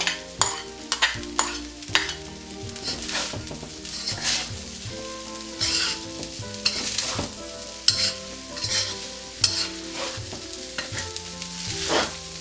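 Metal spatula scraping and clinking against a metal wok as fried rice is stir-fried and tossed, over a light sizzle. There are many short, irregular scrapes and taps.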